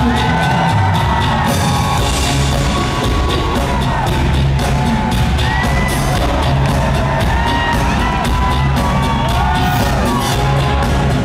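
A live band playing rock music, heard from the audience in a large theatre: drums, keyboards and electric guitar at a steady, loud level.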